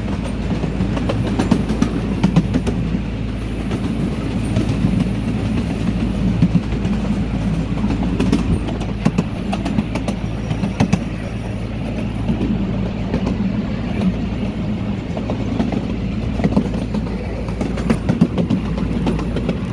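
Small park train running along its track, heard from an open passenger car: a steady low rumble with frequent short clicks.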